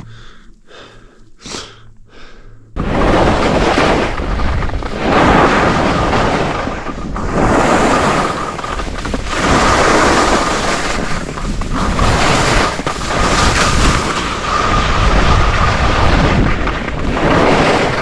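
Wind rushing hard over the microphone of a skier on a fast descent, loud and surging up and down. It comes in suddenly about three seconds in, after a few quieter short sounds.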